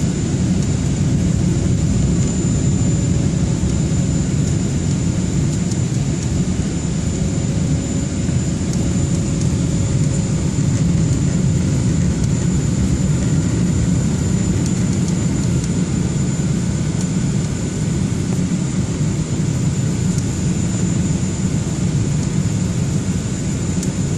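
Jet airliner cabin noise on the descent before landing: a steady low rush of engines and airflow, heard from inside the passenger cabin, with a thin steady high whine above it.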